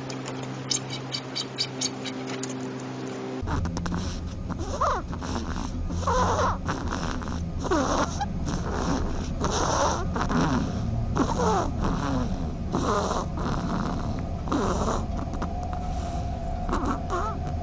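An animal giving a series of short, breathy cries, roughly one a second, each bending in pitch. Before them, during the first few seconds, there is a steady hum with light ticking.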